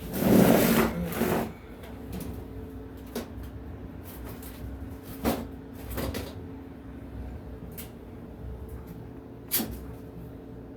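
A loud rustling clatter lasts about a second and a half. Then come a few scattered sharp clicks and knocks of hand tools being handled on the engine, over a steady low hum.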